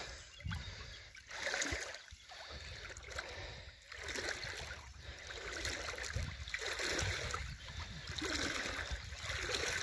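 Shallow water sloshing and splashing as a large sturgeon, just released, swims off through it. The sound comes and goes in irregular swells, over a low rumble of wind on the microphone.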